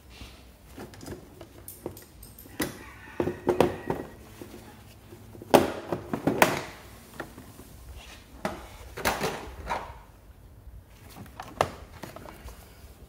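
Irregular knocks, thunks and short clattering of hands handling parts and wiring on a stripped-down scooter frame, the loudest knocks about halfway through.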